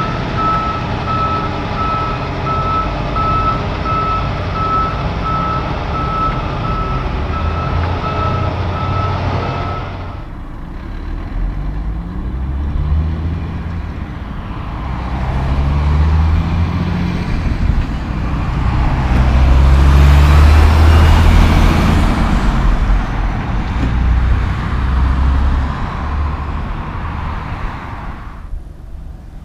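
A Kenworth semi-truck's diesel engine running with a steady beeping backup alarm for about the first ten seconds. After a sudden change, another big diesel truck approaches, its engine rising in pitch in steps as it pulls up through the gears, is loudest as it passes, and fades away near the end.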